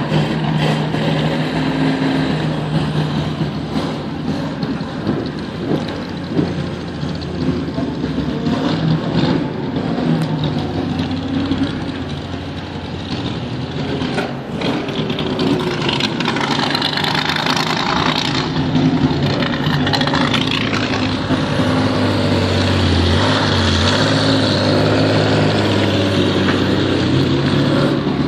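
Ferrari F40's twin-turbo V8 idling steadily, louder in the second half.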